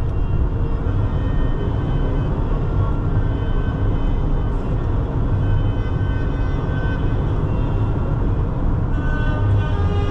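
Instrumental background music over a steady low rumble. The music thins out through the middle and swells back in near the end.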